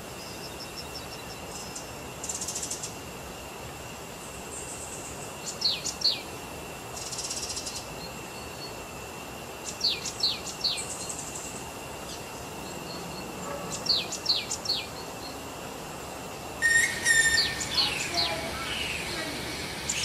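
Birds calling in a rainforest: short, high, falling chirps in clusters of two or three every few seconds, over a steady high insect hum. The chirps grow louder near the end.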